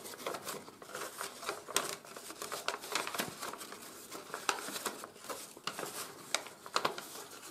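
A sheet of 80 g/m² office paper being handled and folded, crinkling and rustling with many irregular light crackles as a folded origami model is opened up and turned inside out.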